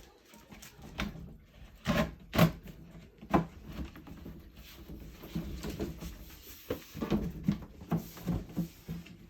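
Wooden dresser panel being handled and fitted into place: irregular knocks and thumps of wood on wood, with rubbing and scraping between them.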